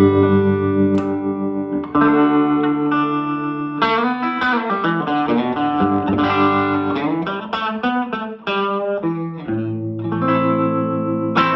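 Electric guitar played through a Silvertone 1484 Twin Twelve tube amplifier, with a warm, lightly driven tone. Held, ringing chords give way in the middle to a quicker run of single notes with bends, then chords return near the end.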